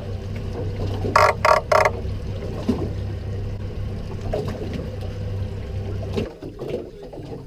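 Charter boat's engine running with a steady low hum, with three short, loud, sharp sounds in quick succession about a second in. The engine sound cuts off suddenly about six seconds in.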